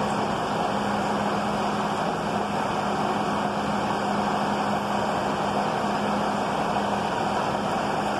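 Class 153 diesel multiple unit idling at the platform: a steady drone from its underfloor Cummins diesel engines with a constant low hum.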